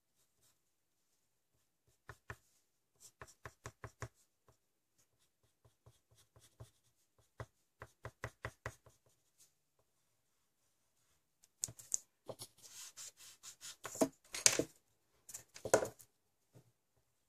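Pencil point tapping and scratching on paper over a hard tabletop: quick runs of short, sharp ticks as small strokes are drawn. About twelve seconds in, it gives way to louder rubbing across the paper mixed with knocks.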